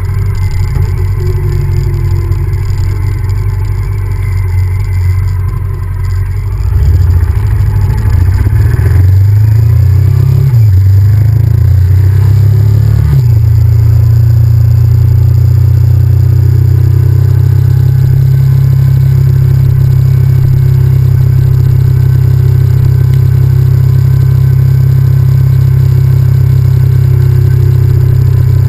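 Honda VTR1000F's 90-degree V-twin engine running on the road, its pitch rising and falling between about 7 and 13 seconds in as the engine speed changes, then holding steady.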